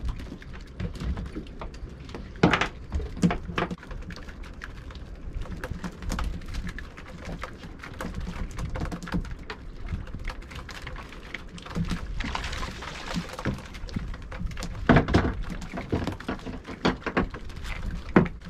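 Irregular thuds and taps on a small fibreglass boat as freshly caught mackerel are unhooked and flap on the deck, over a steady low rumble. The loudest knocks come about two and a half seconds in, just after three seconds and about fifteen seconds in.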